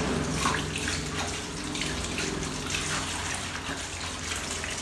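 Water running and splashing as a bunch of mustard greens is rinsed by hand.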